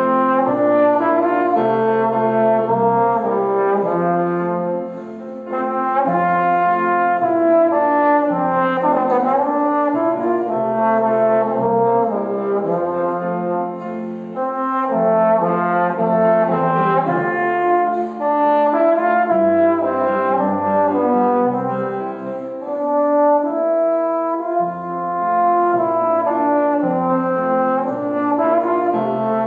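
Instrumental music: sustained chords over a moving bass line, the notes changing every second or so, with no speech.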